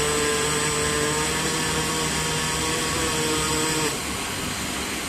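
Pulsed MIG welding arc running steadily, a noisy hiss with steady tones over it, which stops about four seconds in, leaving a steady machine hiss.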